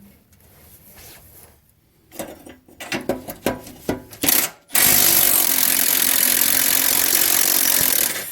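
A few metal knocks, then a power impact wrench running hard on rusted bolts for about three and a half seconds before stopping suddenly.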